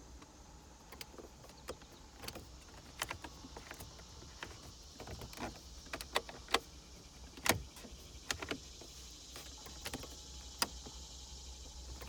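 Buttons and selector knobs on a 2006 Hyundai Santa Fe's heater/AC control panel being pressed and turned: a string of sharp, irregular plastic clicks. The blower motor does not come on.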